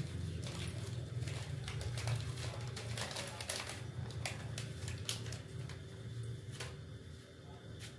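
Water heating in an aluminium saucepan on a gas stove: irregular light ticking and crackling over a low steady hum.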